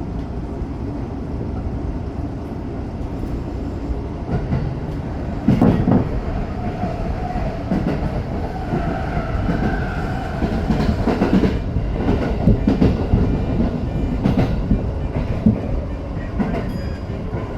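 Tokyo Metro 05 series electric train running, heard from inside the front car: a steady low rumble with the wheels clacking over rail joints, in clusters of knocks, and a faint whine partway through.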